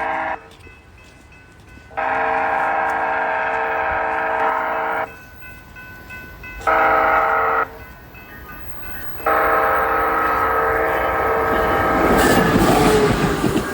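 Train horn sounding a chord of several steady notes in repeated blasts: one ends about half a second in, then come a long blast, a short one and another long one, the long-long-short-long pattern of a grade-crossing warning. Near the end the rumble and wheel clatter of the passing train take over.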